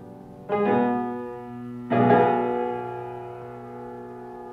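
Background music: two sustained piano-like keyboard chords, one struck about half a second in and another about two seconds in, each left to ring and slowly fade.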